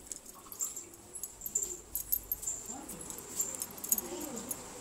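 Bangles jingling in quick, irregular clicks, with rustling and knocks from a phone being handled while carried. Faint rising and falling tones sound in the background in the second half.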